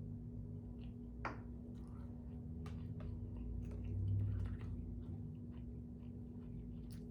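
A person chewing food close to the microphone, with wet mouth sounds and scattered small smacks and clicks.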